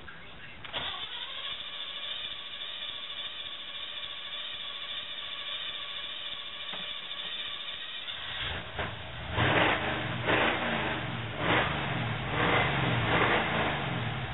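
Jeep Wrangler YJ being cold-started after sitting about 30 days: the starter motor cranks with a steady whine for about seven seconds before the engine catches. The engine then runs and is revved in several surges, a hard start after long standing.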